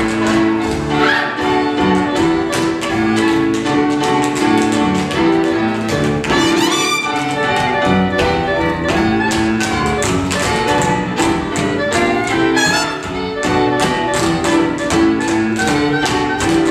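Tap dancing: two dancers' tap shoes striking the stage in fast, dense rhythms over an orchestral accompaniment led by strings, an instrumental tap break with no singing.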